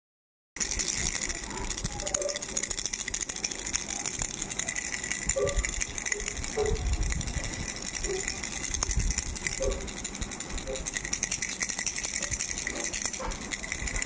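Pink plastic starfish-shaped baby rattle shaken steadily by hand, a fast, continuous rattling that starts about half a second in.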